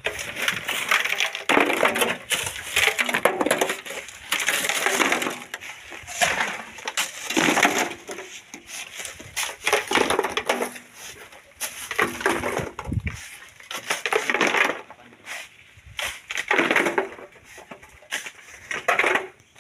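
Shovel scraping into and scooping gritty black volcanic sand and gravel by hand, in repeated harsh strokes about every one and a half seconds.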